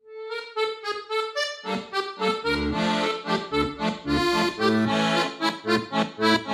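Instrumental intro music of short, detached notes: a single repeated melody note at first, with lower chords and bass joining about a second and a half in.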